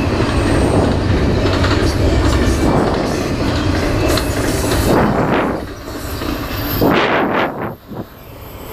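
Double-stack container freight train rolling past, a steady heavy rumble with wheels clattering on the rails. It thins out about six seconds in, and two brief whooshing swells come near the end.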